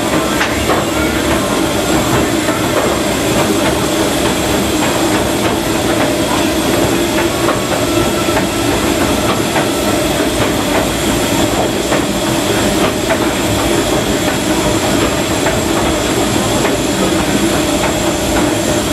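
Steady running noise of a 1925 Baldwin steam locomotive moving slowly, heard from inside its cab: the engine and the wheels on the track, with light clicking mixed in.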